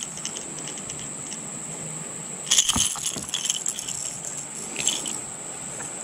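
Small metal gear rattling and jangling in two brief clusters, one about two and a half seconds in and a shorter one near the end, as fishing tackle is handled in a kayak.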